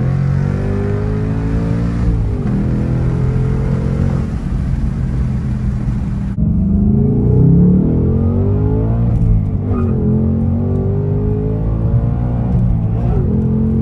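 Car engine accelerating. Its pitch climbs and then drops back several times, as at gear changes, and the background noise changes abruptly about halfway through.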